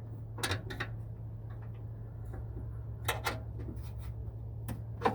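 A few sharp clicks and taps, coming in pairs, as a bolt is worked down through a horn mount under a vehicle's fender, over a steady low hum.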